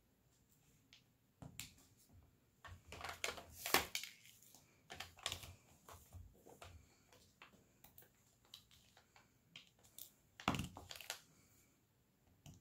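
Quiet clicks and taps of resin diamond-painting drills being picked up with a drill pen and pressed onto the adhesive canvas. There are denser stretches of clicking and rattling about three seconds in and again about ten seconds in.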